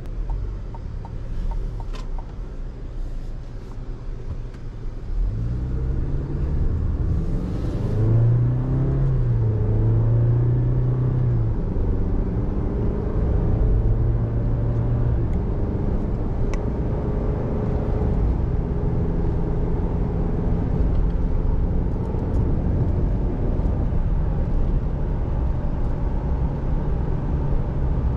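Chevrolet Colorado ZR2 pickup accelerating, heard from inside the cab. From about five seconds in the engine note climbs and drops back several times through upshifts, then settles into a steady cruise with engine and road hum.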